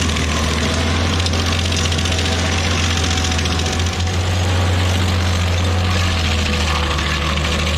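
Stump grinder's engine running steadily, a constant low drone with a noisy haze above it.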